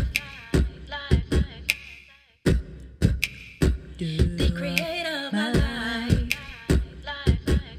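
A cappella music without lyrics: a beatboxed drum pattern of sharp mouth hits under sustained, layered wordless vocal harmonies. The beat and voices drop out briefly about two seconds in, then start again.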